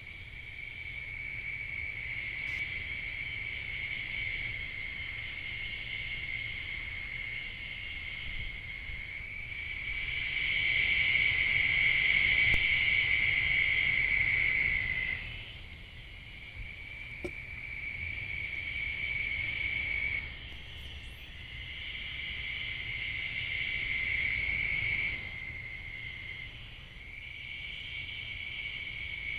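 Night chorus of insects trilling: long, steady, high-pitched trills that break off and start again every few seconds, loudest for a few seconds near the middle, heard through a trail camera's microphone.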